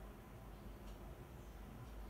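Quiet room tone: a steady low hum and faint hiss, with one faint click about a second in.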